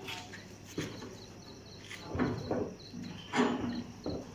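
Crickets chirping in a steady, evenly pulsed trill. A few louder bumps and scrapes come through about two and three and a half seconds in as a heavy machine is shifted by hand.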